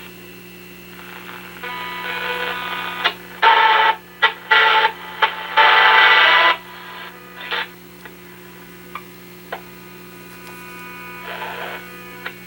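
AM radio being tuned across the dial: loud bursts of static and whistling tones from stations, mostly in the first half, over a steady hum. Short crackles come near the end as it finds little to receive.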